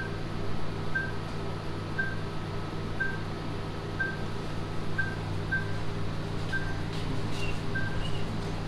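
Patient heart monitor beeping with each heartbeat: short, high electronic beeps about once a second at a slightly uneven pace, over a steady low hum of the lab's equipment.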